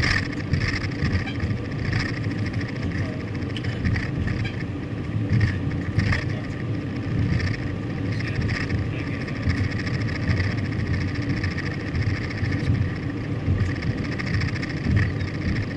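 Car driving, a steady rumble of engine and road noise heard from inside the vehicle, with faint irregular knocks.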